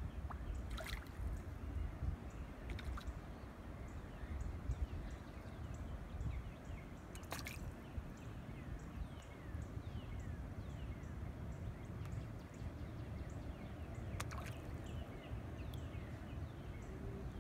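Quiet water lapping at the pier edge over a low steady rumble, broken by three small sharp plops about seven seconds apart as fish rise to bread floating at the surface. Faint short bird chirps behind.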